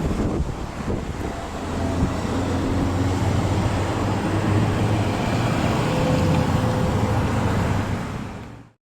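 Steady low rumble of road traffic with wind buffeting the microphone; it fades out and cuts off just before the end.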